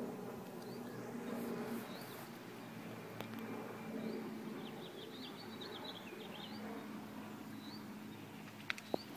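Faint steady drone of the distant homemade RC model boat's motor, with small birds chirping short rising chirps over it. Two sharp clicks come near the end.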